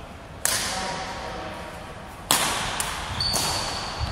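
Badminton racket strings hitting a shuttlecock three times in a rally: a serve about half a second in, a return near the middle, and a quicker hit about a second later. Each sharp smack rings out in a large hall. A thin high squeak enters near the end.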